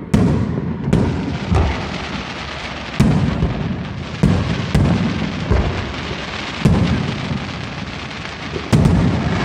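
Aerial firework shells bursting overhead: about nine sharp booms at uneven spacing, each trailing off in a low rumble.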